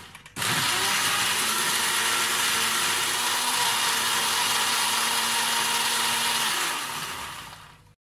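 Electric countertop blender running, blending fruit into juice. It starts about a third of a second in, runs loud and steady, then winds down and stops near the end.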